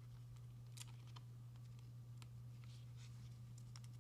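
Faint scattered clicks and light scraping of trading cards being handled and slid in the hands, over a steady low electrical hum.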